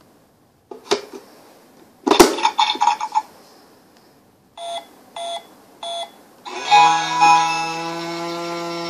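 Electronic keypad piggy-bank toy: a plastic click, then a hit with a short electronic ringing, three short keypad beeps about half a second apart, and from about six and a half seconds in a long steady electronic chord as its green light comes on.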